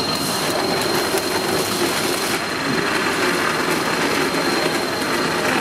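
Electric mixer-grinder running with a jar of apple juice blending: a steady motor hum and whir with a thin high whine. The top hiss drops away about two and a half seconds in.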